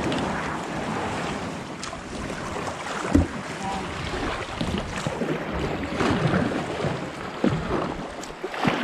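Rushing water of a flooded creek around a kayak, with wind on the microphone. A knock sounds about three seconds in.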